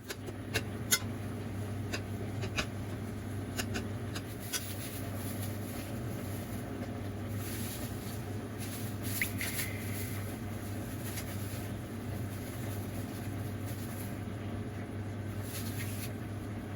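A steady low hum over a soft noise bed, with scattered light clicks and taps, most of them in the first few seconds.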